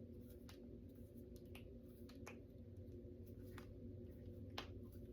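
Faint finger and knuckle joints cracking: a handful of small, sharp, separate pops spread irregularly across a few seconds, over a low steady room hum.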